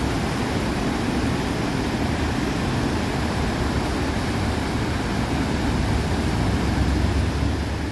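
Floodwater of a swollen river pouring over a low dam and churning in whitewater below it: a steady, unbroken rushing of water.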